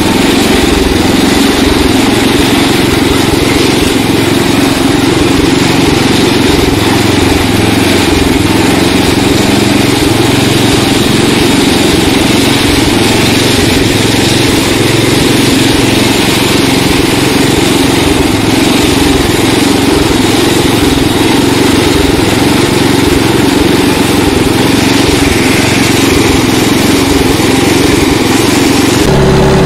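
Riding lawn tractor's small engine running steadily as the tractor is driven over grass.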